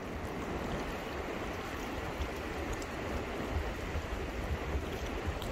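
Swollen, muddy river rushing past the bank: a steady wash of flowing water, with an uneven low rumble underneath.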